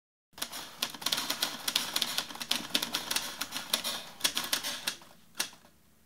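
Typewriter keys clacking in a rapid flurry of strikes, thinning out to a few single strikes near the end.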